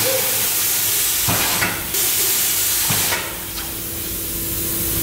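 Compressed air hissing steadily, with a short dip just before two seconds in; a steady hum joins about three seconds in as the hiss softens.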